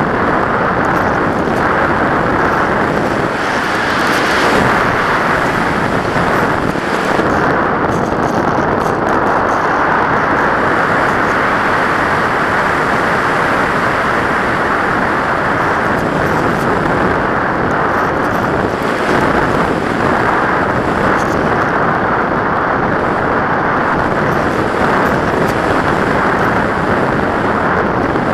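Steady, loud rush of airflow over the microphone of an action camera riding on a radio-controlled model plane in flight, with small rises and falls in level as the plane manoeuvres.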